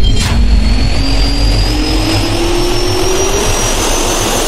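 Jet-turbine sound effect over a loud rushing noise, with a whine that rises slowly and steadily in pitch as the engine spools up. A short sharp click comes just after the start.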